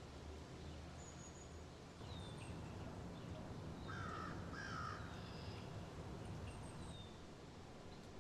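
Faint bird calls: short high chirps every second or so, and two harsher calls in quick succession about four seconds in, over a low steady rumble.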